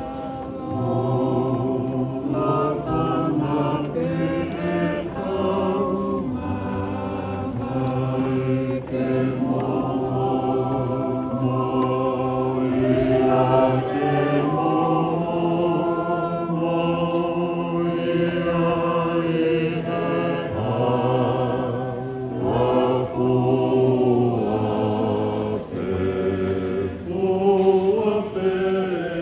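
A choir singing a slow hymn in harmony, several voice parts holding long notes and moving together.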